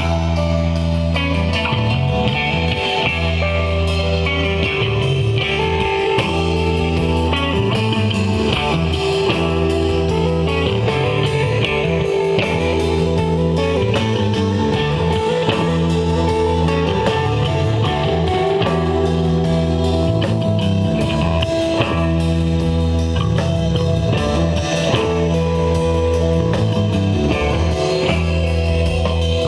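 Desert rock band jamming live: electric guitars and a drum kit over a low line that repeats every couple of seconds, at a steady loud level with no singing.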